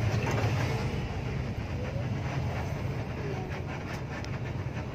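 Steady low drone of a moving intercity bus heard inside its cabin: engine and road noise, with a few light clicks and rattles.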